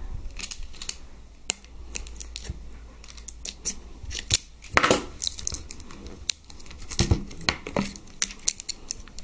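Scissors snipping through a crinkly plastic wrapper in a series of irregular short cuts, the loudest about five and seven seconds in, with the wrapper rustling between cuts.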